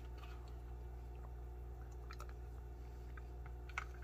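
Faint clicks and scrapes of a spoon in a plastic food tray, with soft eating sounds, over a steady low hum; one sharper click near the end.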